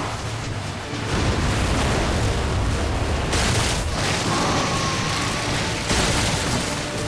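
Anime battle sound effects: a continuous low, rumbling explosion with louder crashes about three seconds in and again near six seconds, over background music.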